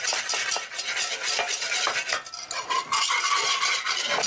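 Wire whisk stirring flour, lemon juice and water together into a blanc in a saucepan: rapid, continuous clicking and scraping of the wires against the pan.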